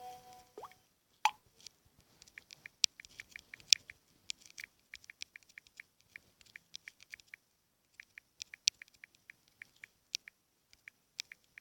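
Smartphone touchscreen keyboard clicks as a message is typed: irregular runs of light taps, several a second, with a few sharper clicks and a pause in the middle.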